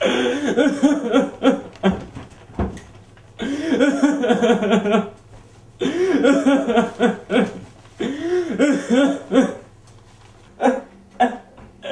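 A young man sobbing in four wavering, rising-and-falling bouts of crying with short pauses between, then a few brief sobs near the end.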